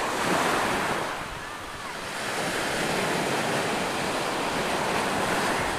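Surf washing up onto a sandy beach, swelling at the start, easing briefly, then building again, with wind on the microphone.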